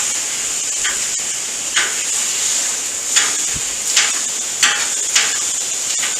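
Chicken sizzling with a steady hiss on a hot gas cooking surface while a knife chops it, hibachi-chef style, in about six separate knocks and scrapes of the blade against the metal.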